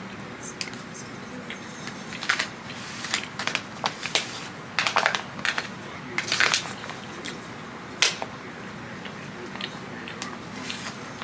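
Close-up chewing and crunching of crispy fried food, a run of irregular sharp crunches with short pauses between bites.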